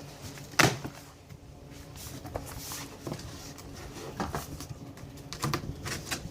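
Scattered clicks and knocks of a cardboard box and its packing being handled, with one sharp knock about half a second in.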